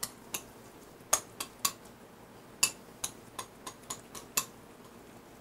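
A utensil clicking and tapping against a bowl or plate as tuna salad is scooped out and served: about a dozen short, irregular clinks.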